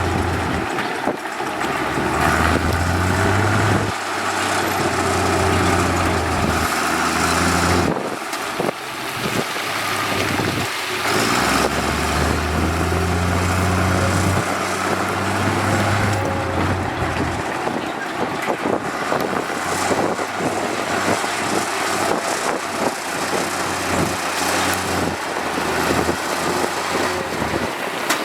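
Diesel engine of heavy road-building machinery running under load, its low engine note swelling and shifting twice.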